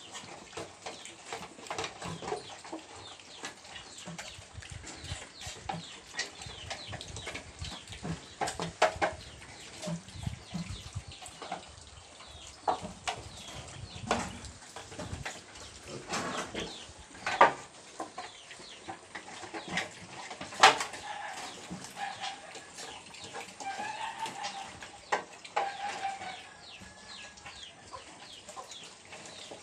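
Piglets feeding from shallow dishes: chewing and grunting, with many sharp knocks and clicks, two of them loud. Short high-pitched calls repeat about two-thirds of the way through.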